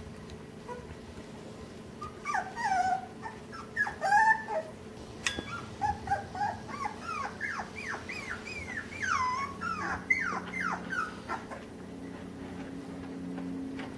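Miniature American Shepherd puppies at play, giving a run of short, high-pitched yips and whines that rise and fall in pitch. The calls start about two seconds in and stop a couple of seconds before the end, over a steady low hum.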